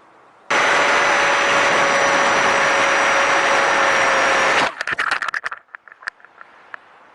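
Loud rush of air with a steady whine on top, from the RC park flyer's electric motor and propeller and the air streaming past the 360 camera. It starts suddenly about half a second in and cuts off abruptly after about four seconds. Scattered crackling clicks follow for about two seconds.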